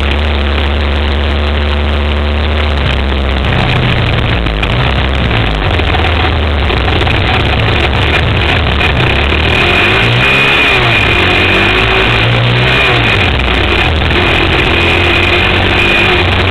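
Suzuki Z400 sport quad's single-cylinder four-stroke engine running hard under way, heard from an on-board camera with wind noise over it. The engine note holds fairly steady for the first few seconds, then rises and falls repeatedly as the rider works the throttle.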